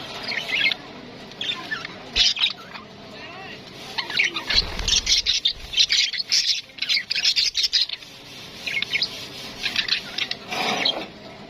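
Parrots calling in quick runs of short, high chirps and squawks, densest in the middle and again near the end.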